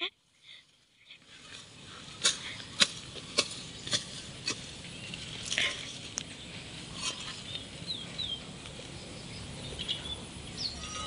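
A long-handled garden tool chopping into soil and corn stalks: a run of sharp knocks about every half second, then a few more spaced out, over a steady outdoor hiss. A few short bird chirps come near the end.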